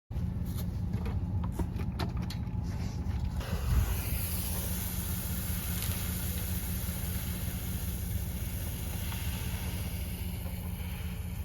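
A steady, low vehicle engine drone with a few light clicks and knocks in the first few seconds and a short thump about four seconds in.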